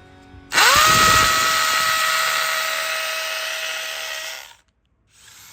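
Cordless brushless hammer drill (DeWalt DCD1007) motor spinning up quickly to a steady high whine, running at constant speed while slowly getting quieter, then cut off abruptly about four and a half seconds in.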